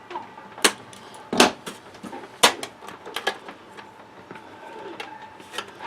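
Hand nibbler punching small pieces out of a thin metal license plate blank: a few sharp clicks, roughly one a second, stopping after about three seconds.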